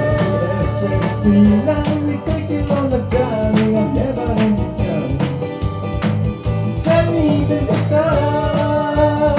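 Live band playing an anime-song cover, with singing over guitar and a steady drum beat.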